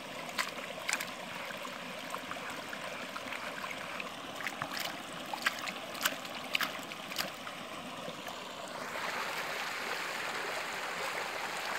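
Shallow stream water running steadily around a plastic basin of muddy sediment being washed for gold, with scattered small sharp splashes and clicks. About nine seconds in, the water sound turns fuller and a little louder.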